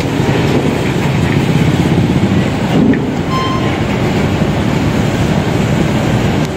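Steady low rumble of engines at a ferry's loading ramp, with a brief faint beep a little after three seconds in.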